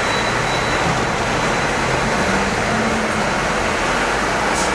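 Hong Kong double-decker tram running along street track, heard from on board: a steady rumble of wheels and motor mixed with the noise of nearby road traffic, including a bus alongside.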